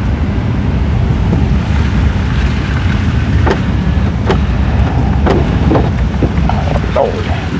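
Gusting wind buffeting the microphone over the rumble of a vehicle being driven. In the second half there are a handful of sharp knocks and short squeaks.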